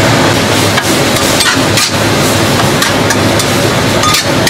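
Chicken giblets sizzling in hot oil in a stainless-steel wok while being stir-fried, with the spatula scraping and knocking against the pan several times.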